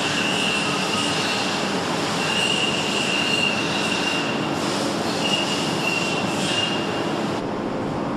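A CNC crankshaft grinding machine running, in a loud steady hiss of machining noise. A high-pitched squeal comes and goes in stretches of about a second. Near the end the noise drops abruptly to a lower machine hum.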